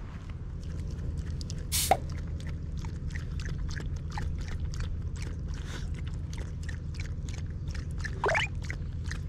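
Shiba Inu lapping water from a plastic bottle held out by hand: a quick, even run of wet clicks, about four a second. A sharp noise about two seconds in and a short squeak near the end stand out above the lapping.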